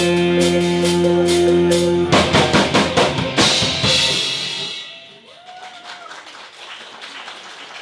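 Live rock band ending a song: a held guitar chord over steady drums, then a drum fill of rapid hits about two seconds in and a final crash that rings out and fades by about five seconds. After that only faint room noise remains.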